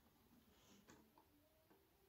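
Near silence, with a few faint ticks.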